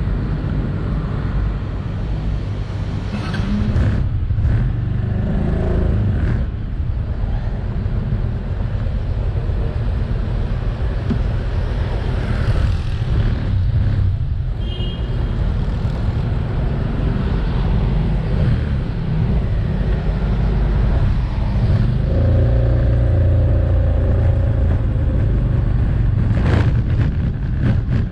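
Steady low rumble of a motorbike ridden slowly along a city street, with road traffic going past.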